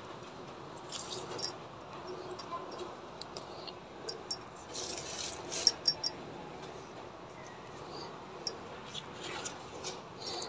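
Hands pinching back chrysanthemum shoot tips: faint leaf rustling and a few light clicks, with three sharper clicks in quick succession about halfway through.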